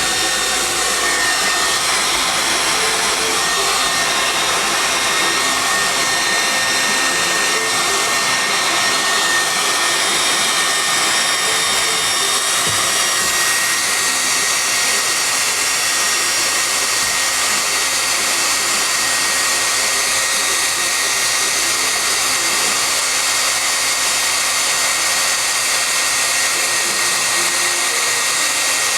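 Handheld hair dryer blowing steadily, a rush of air with a high, steady whine over it.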